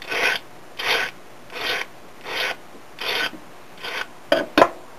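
Hand file rasping along the snipped edge of a German silver (nickel silver) strip: six even strokes about three-quarters of a second apart, breaking the rough edge left by the snips. Two short sharp clicks near the end.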